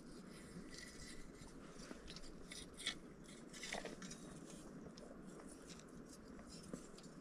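Faint scattered wet crackles and clicks from a steel round-bar crab hook being worked down into a mud crab burrow in soft mangrove mud, with one slightly louder click about three seconds in.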